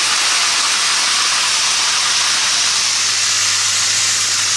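Food sizzling steadily in a hot cooking pot, a continuous hiss under a low, even hum.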